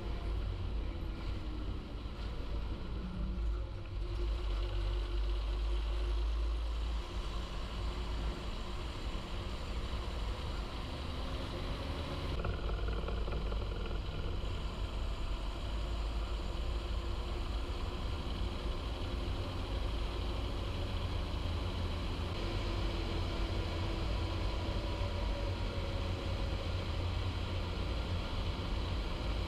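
John Deere 6930 tractor's six-cylinder diesel engine running steadily, its pitch drifting slightly up and down.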